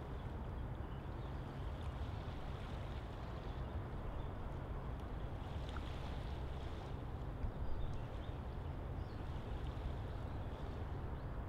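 Steady outdoor ambience: a constant low rumble with a soft hiss over it and a few faint ticks.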